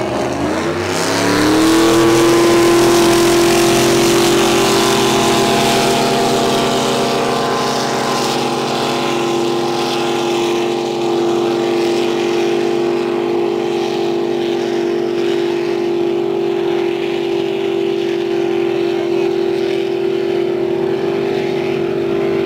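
Racing boat engines at full throttle. The engine note rises over the first couple of seconds, then holds as one steady, loud, high-revving drone.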